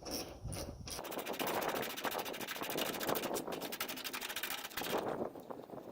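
Ratchet wrench clicking rapidly as it turns the hood latch bolts with a 10 mm deep socket.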